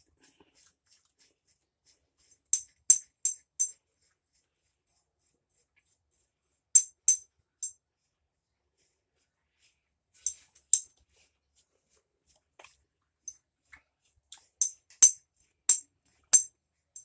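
Light metallic clinks and jingles in short clusters of two to five, a few seconds apart: metal parts knocking together as they are handled.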